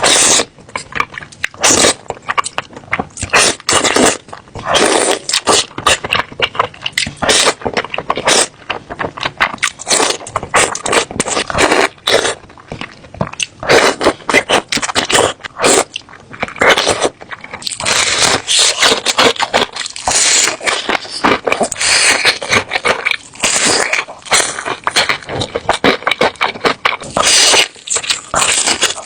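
Loud eating sounds: chewing and slurping with many short, irregular wet clicks and smacks.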